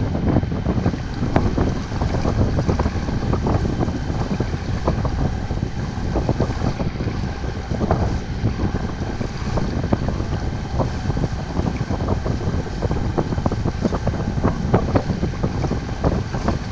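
Wind buffeting the microphone on a sailboat under power, over the steady drone of the boat's engine.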